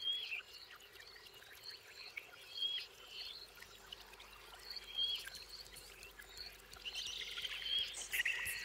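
Faint animal chirping: short high chirps repeated about every two and a half seconds over a light hiss and soft ticks, growing busier near the end.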